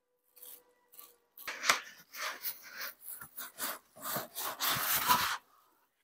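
Cardboard and foam packing rubbing and scraping against each other as a boxed inverter is worked up out of its carton: irregular scrapes starting about a second and a half in, getting denser and louder before stopping shortly before the end.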